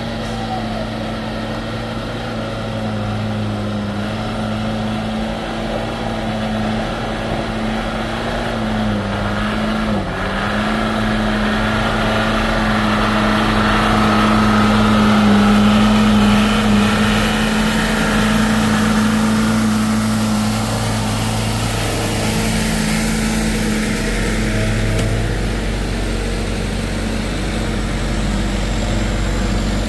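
Mitsubishi light trucks' diesel engines labouring up a steep, broken incline: a steady low engine drone, with a short dip in engine speed about a third of the way in, after which the engine pulls louder, loudest around the middle.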